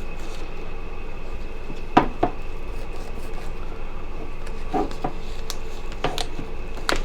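A steelbook case being handled and unwrapped: a handful of sharp clicks and taps against a steady background hum.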